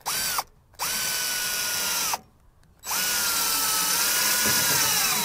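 DeWalt cordless drill driving self-drilling decking screws through the mailbox's base into a wooden post: a brief blip of the motor, then two longer runs of about one and two seconds, the motor's whine falling off at the end of each run.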